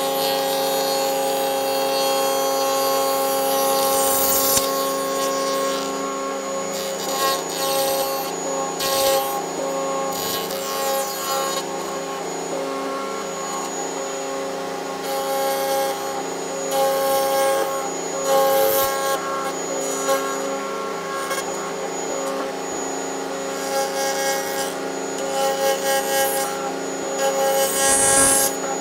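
Table-mounted router running with a steady high whine while its bit cuts dovetails in a light camphor board, with repeated bursts of harsher cutting noise as the board is pushed across the bit.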